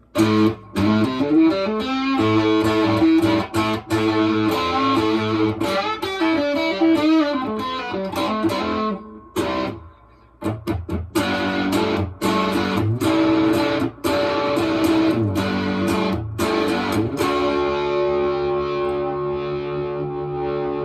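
Electric guitar played through a Harmonic Percolator-style fuzz pedal, with a fuzzy overdriven tone: picked riffs and chords, a brief break about halfway through, then a chord left to ring near the end.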